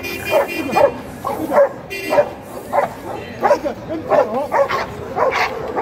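Muzzled dog barking again and again through a wire basket muzzle, about two short barks a second, aggressive barking at a man who is provoking it to test its guarding.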